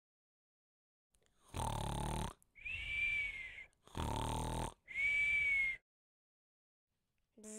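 Cartoon-style snoring, two cycles starting about a second and a half in: each is a rasping snore breathed in, followed by a high, steady whistle breathed out.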